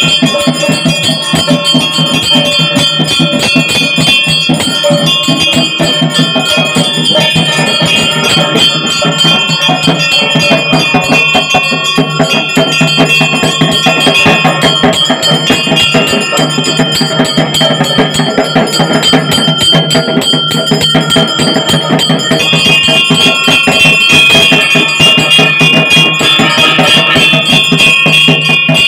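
A hand-held brass puja bell is rung rapidly and without pause in a steady, continuous ringing. This is the bell rung during a Hindu puja offering before the altar.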